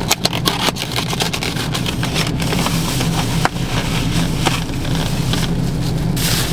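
Plastic takeout bag and foam food containers rustling and crackling as they are handled, over the steady low hum of a car running at idle.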